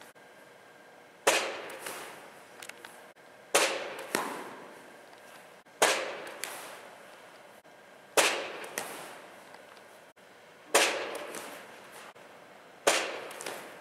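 Baseballs striking a catcher's gear and mitt as he blocks them during a blocking drill: six sharp smacks about every two and a half seconds, each with a small second click and a long echo in the big indoor room.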